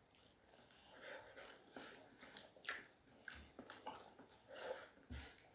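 Faint chewing and mouth sounds of someone eating, with a few light taps and scrapes of metal spoons in a bowl.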